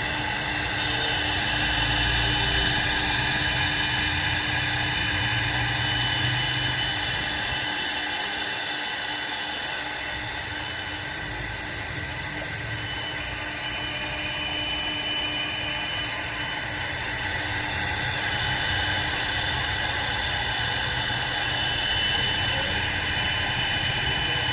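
SIE-690 CNC router for jarkan die making, running with its spindle going: a continuous machine whine with a few steady tones over a hiss. It grows a little louder and softer in slow waves as it works.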